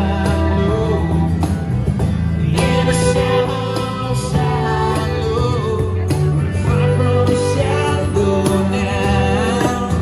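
Street band playing live: a man singing into a microphone over acoustic guitar, electric guitar, violin and cajón, with sustained, wavering melody notes over a steady bass.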